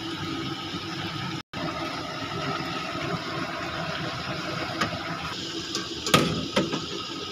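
Chicken pieces deep-frying in hot oil in a karahi: a steady sizzling and bubbling, broken by a short gap about a second and a half in, with a couple of sharp knocks near the end.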